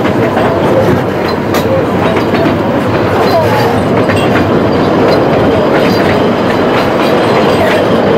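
Narrow-gauge steam train carriages running along the track, heard from aboard: a steady loud rumble of wheels on rail with scattered clicks.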